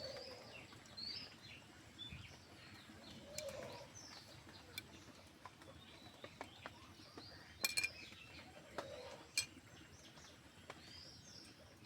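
Faint birds chirping, with a few sharp clinks of a utensil as marinated meat is put into a hollowed green coconut shell. The loudest clinks come about two-thirds of the way through.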